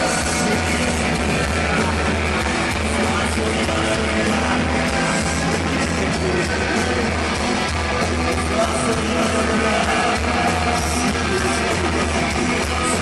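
A heavy metal band playing live: distorted electric guitars, bass and drums, dense and unbroken.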